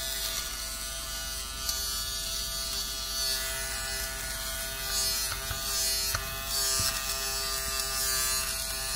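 Nova electric lint remover (fabric shaver) running: its small motor gives a steady, even-pitched hum while its cutter blade shaves pills of lint off a woven jacket.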